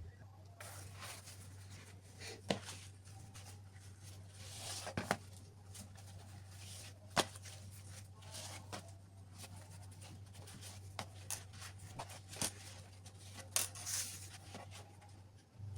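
Quiet food-preparation handling: scattered light taps, clicks and rustling, a few louder knocks spread throughout, over a low steady hum.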